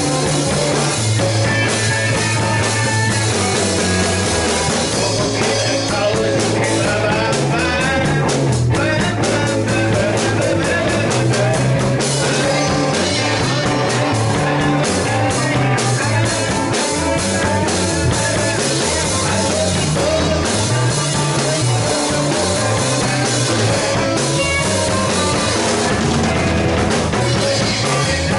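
Live rock band playing: electric guitars through amplifiers and a drum kit, with a bass line moving steadily underneath.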